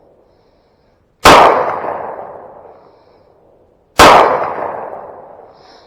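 Two pistol shots about three seconds apart, each cracking out and echoing away over a second or more.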